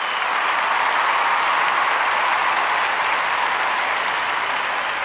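A crowd applauding: a steady wash of clapping that swells in, holds and fades away near the end.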